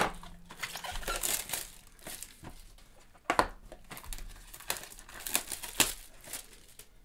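Plastic shrink-wrap crinkling and tearing as it is pulled off a sealed box of trading cards, in several separate rustles.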